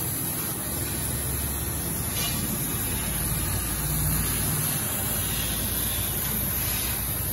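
CNC laser cutter cutting mild steel sheet: a steady hiss of assist gas and cutting, over a low machine hum.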